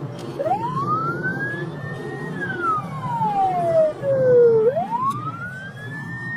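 Police car siren in a slow wail: rising over about two seconds, falling for over two more, then rising again near the end. Beneath it runs the steady engine and road noise of a car driving on a highway, heard from inside the car.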